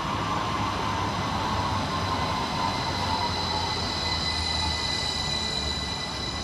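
Northern Class 333 electric multiple unit pulling in: its traction motor whine falls slowly in pitch as the train slows, over the rumble of the running train. Steady high-pitched tones sound above it and cut off suddenly at the end.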